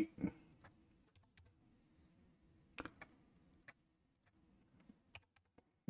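A few faint, scattered clicks of computer keys as the design work goes on.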